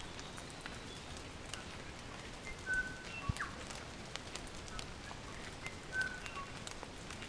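Forest birds calling: short whistled notes every few seconds, with an upward-sweeping note about three seconds in, over a steady faint hiss and scattered light ticks. A single low thump a little after three seconds in.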